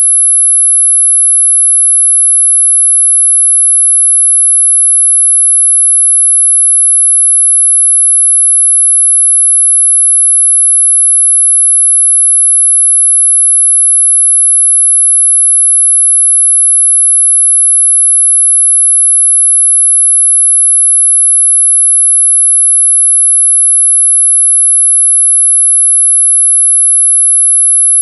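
A loud, steady 11 kHz sine tone: a single very high-pitched note that never changes, made for masking tinnitus ringing.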